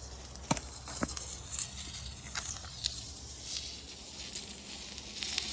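Quiet woodland ambience: a steady faint hiss and low hum, broken by a few short soft clicks, the sharpest about half a second in and another about a second in.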